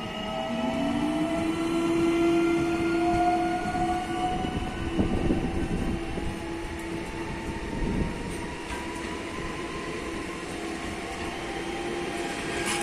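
Newag Impuls electric multiple unit pulling away from a platform, its traction inverters whining in several tones that climb slowly in pitch as it accelerates, over a steady lower hum. A couple of dull knocks come from the wheels on the track.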